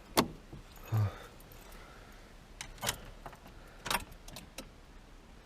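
Car keys jangling, with a scattered run of sharp clicks and knocks and a short dull thump about a second in.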